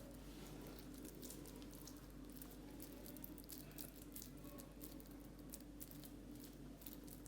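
Near silence: a faint steady hum with scattered faint soft ticks and squishes of wet hands handling raw chicken mince.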